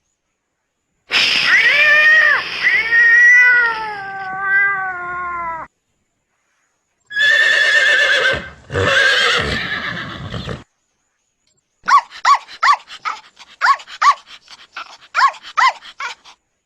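Recorded horse neighing: a long wavering whinny that falls in pitch, then a second, rougher neigh. Near the end comes a dog barking, about a dozen quick barks.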